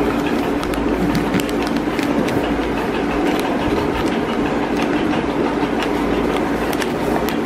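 A sheet of paper being creased and handled on a table, with short crackles and clicks scattered throughout, over a loud, steady background hum and rushing noise.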